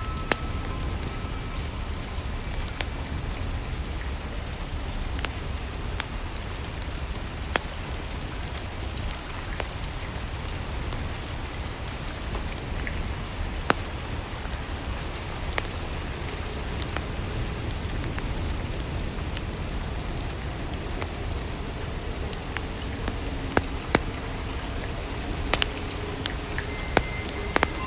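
Steady rainfall, an even hiss with scattered sharp drips and pops.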